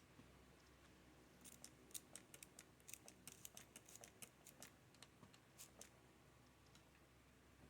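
Faint, irregular run of clicks from the keys of a HyperX Alloy Origins Core mechanical keyboard (red switches), starting about a second and a half in and lasting about four seconds.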